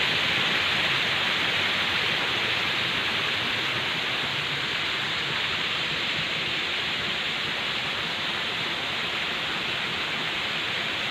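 Steady rush of falling water, a dense even hiss with no separate drops or splashes, slowly getting quieter.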